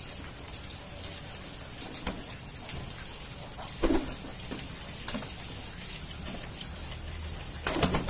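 Domestic pigeons cooing, with sharp wing flaps as the birds are handled and flutter off a bamboo cage: a loud flutter about four seconds in and another near the end, with smaller ones about two and five seconds in.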